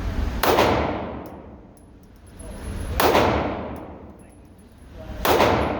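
Three handgun shots, about two and a half seconds apart, each echoing and dying away slowly.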